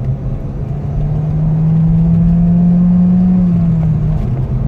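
Peugeot 3008's 1.6 turbo petrol four-cylinder engine accelerating hard, heard from inside the cabin: its note climbs steadily in pitch and grows louder, then falls back near the end. It is pulling really good above 3,500–4,000 rpm without dropping into limp mode, now that its blocked catalytic converter has been replaced.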